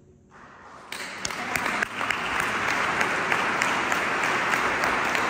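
Audience applause starting right after the choir's singing stops: a few hands after a brief hush, then about a second in it breaks into full, steady clapping.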